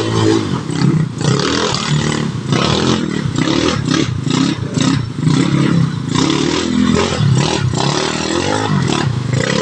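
Automatic scooter engine revving in short, uneven throttle bursts, its pitch rising and falling again and again as the scooter crawls down a steep, muddy, rocky trail.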